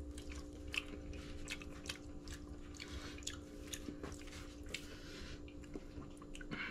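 A person chewing a mouthful of raw minced-fish laab to taste it: soft, irregular wet mouth clicks and smacks over a faint steady hum.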